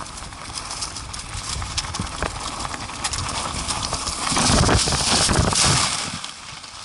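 ATV jolting over a rough trail: irregular knocking and rattling from the machine and its mount. About four seconds in, a louder rough rumbling stretch with hiss lasts roughly two seconds, then eases off.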